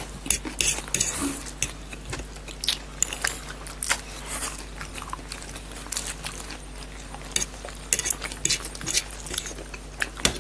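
Close-up eating sounds of chow mein noodles: many short slurps, smacks and chews, with forks clinking and scraping on plates.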